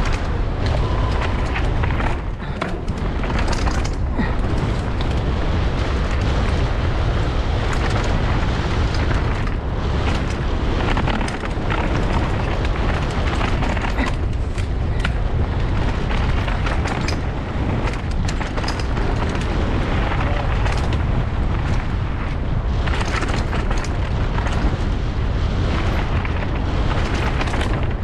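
Mountain bike descending a downhill race course at speed, heard from a helmet-top action camera: heavy wind rumble on the microphone, with tyres on dirt and rock and the chain and suspension knocking and rattling over the bumps. A short beep sounds about a second in.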